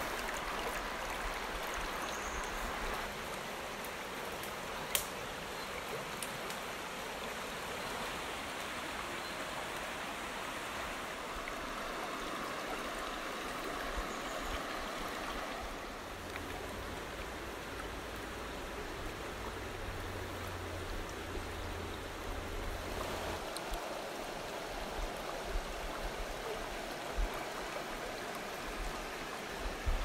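Shallow mountain river flowing over stones: a steady rush of water, with a single sharp click about five seconds in.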